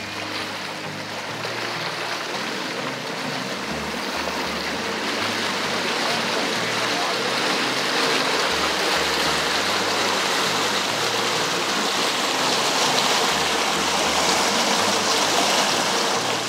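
Rushing, churning water of a motorboat's wake behind the stern while the boat is under way, growing louder and then fading out near the end, with a background music bass line underneath.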